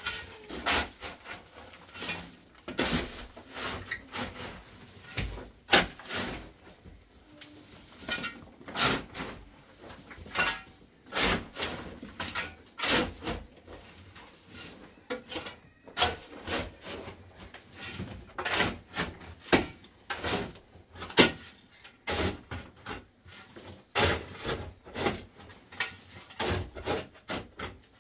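Digging by hand in a dirt and rubble floor: a shovel scraping through loose earth and stones, with irregular scrapes and knocks, one or two a second.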